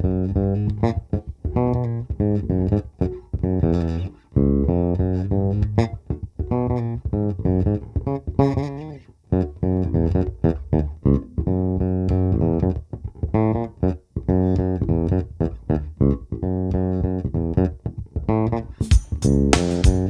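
Electric bass guitar (FOALS FJB7) played unaccompanied: a run of plucked notes and lines. Near the end the notes turn sharper, with bright percussive attacks.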